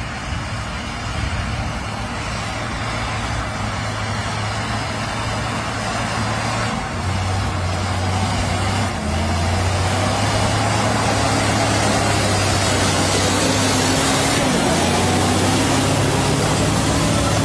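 Weichai diesel engine of a Lovol M2004 200 hp four-wheel-drive tractor running under load while pulling a plough through the soil, a steady low drone that grows louder as the tractor comes closer.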